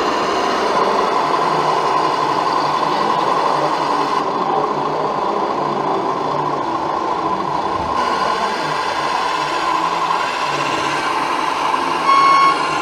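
Radio-controlled model truck driving along the track, its small drive motor and gearbox giving a steady whine and hum. About twelve seconds in, a brief louder pitched tone sounds.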